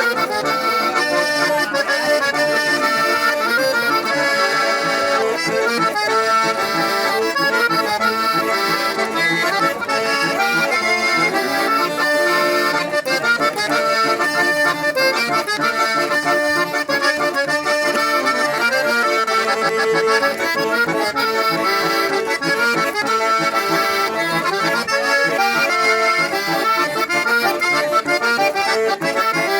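Three-row button accordion (tres hileras) playing a tune, with melody and chords sounding continuously.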